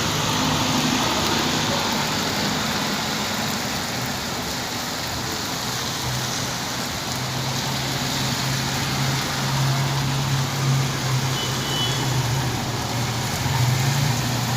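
Steady rain falling, an even hiss of water. A vehicle's low engine hum grows stronger through it from about halfway through.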